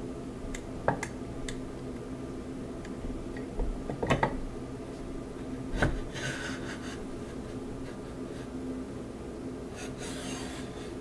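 Proxxon MF70 tool head being slid onto the aluminium extrusion of the Z-axis column: rubbing and scraping with a few sharp clicks and knocks, and two short scraping passes about six and ten seconds in.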